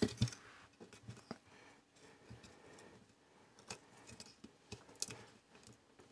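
Faint, scattered light clicks as a DIP microcontroller chip's legs and a metal tool tick against its IC socket while the chip is lined up over the socket before being pressed in.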